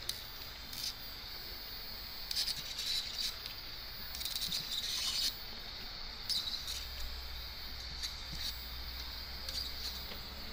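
Portabee 3D printer's extruder stepper motor whining high and chirping in short bursts as it pushes filament out through the hot nozzle. A low hum comes in about two-thirds through.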